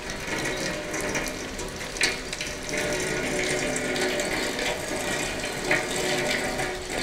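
Water pouring and splashing steadily as a whole leatherjacket fish is rinsed under a stream of water.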